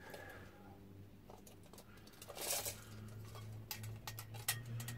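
Faint handling of a tape measure being pulled out and laid along a metal tube: light clicks and taps, with a brief rasp about halfway through and a few sharper clicks near the end. A low steady hum runs underneath.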